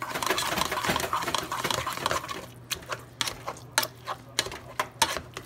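Hand potato masher pounding soft boiled cauliflower in a pot: quick wet squishing for the first couple of seconds, then a run of sharp clicks about every half second as the masher knocks against the pot.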